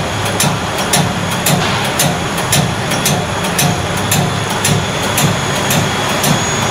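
Dog chew extrusion and cutting machine running, with a steady hum that pulses in the low range and regular sharp clicks about two to three times a second as cut chew sticks are turned out.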